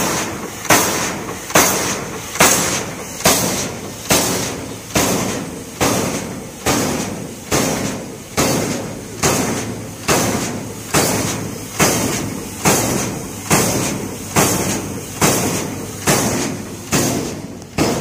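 Steam pile driver's hammer pounding a wooden pile in a steady rhythm, a little more than one blow a second. Each blow is followed by a hiss of exhaust steam that fades away before the next.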